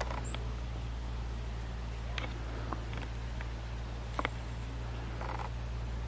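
A few brief, sharp high calls from small birds in the trees, scattered over a steady low rumble.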